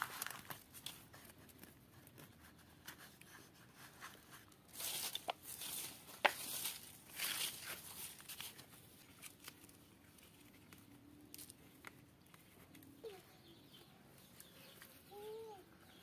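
Hands working the soil of potted plants and pulling at leaves and weeds: rustling, crumbling and tearing, with small clicks of the plastic pots, busiest about five to eight seconds in. A hen clucks a few times near the end.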